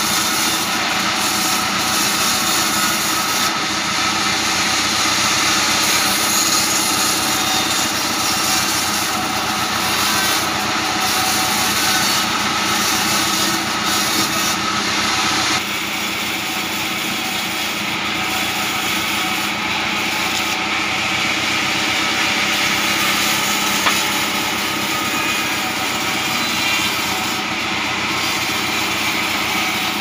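Bandsaw sawmill running steadily as its blade cuts through a slab of hard acacia wood. It is a dense, even machine drone with a constant pitched hum, and it drops a little in level about halfway through.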